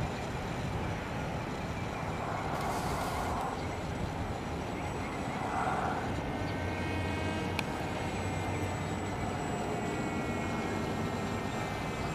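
Radio-controlled flying wing's propeller and motor whining as it flies overhead, the thin whine shifting in pitch through the middle as it passes.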